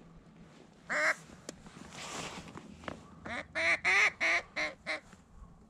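Duck quacking: a single quack about a second in, then a quick run of about seven quacks, loudest in the middle.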